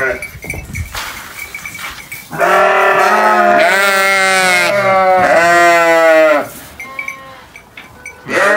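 Sheep bleating loudly: several overlapping ewe calls for about four seconds starting some two seconds in, then a fresh bleat just before the end.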